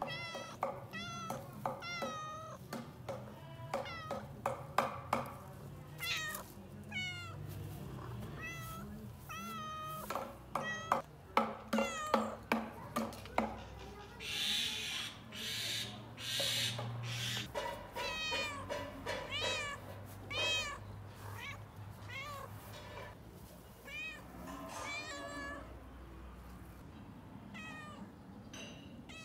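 Tabby-and-white cat meowing over and over, many short meows that rise and fall in pitch, sometimes several in quick succession. Around the middle come two stretches of rushing noise, each about a second and a half long.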